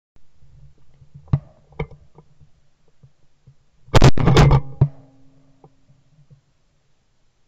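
Shotgun fire heard from a camera mounted on the gun's barrel: a loud burst of reports about four seconds in, lasting about half a second. Two shorter, sharper cracks come a couple of seconds earlier.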